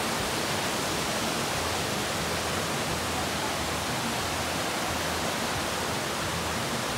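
Fast-flowing creek rushing over rocks, a steady, even water noise without breaks.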